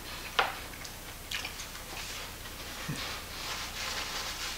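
A sharp click about half a second in and a few lighter ticks, then a soft papery rustle of a paper napkin being wiped across the mouth.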